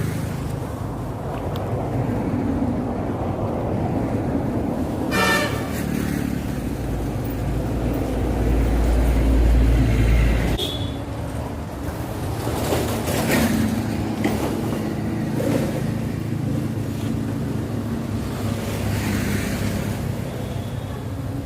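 Road traffic passing with a steady low rumble, one vehicle swelling louder and passing about eight to ten seconds in. A horn sounds briefly about five seconds in.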